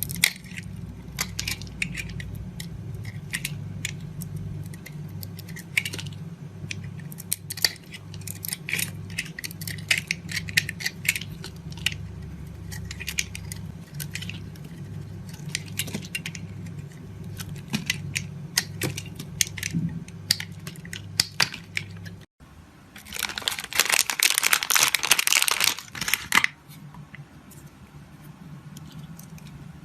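Close-miked crackling and clicking of craft material being handled, over a low steady hum. After an abrupt cut about 22 seconds in, a dense loud scratchy crunching lasts about three seconds, then it goes quieter.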